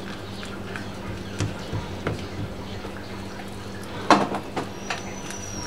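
Spatula stirring a tapioca-starch mixture in a glass bowl: soft scrapes and light clicks, with one louder knock about four seconds in, over a steady low hum.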